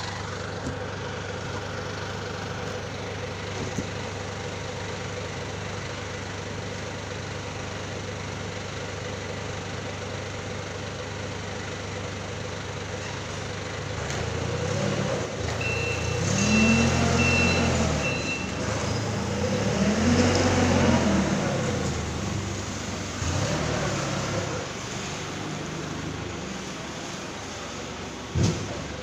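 Forklift engine running steadily, then revving up and down in about four swells as the forklift drives and manoeuvres. A high-pitched beep sounds for a few seconds around the first swell.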